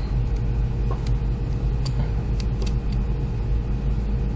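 A steady low rumble with a few faint, small clicks of a tiny eyeglass screwdriver prying at the silicone insulator inside a 510 connector.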